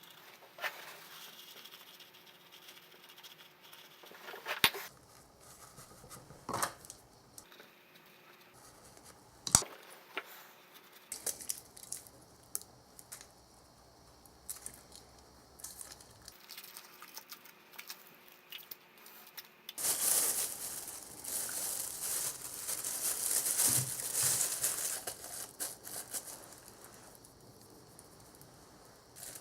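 Hand work on small metal parts: scattered sharp clicks and taps, then about five seconds of louder dry rubbing or scraping near the end.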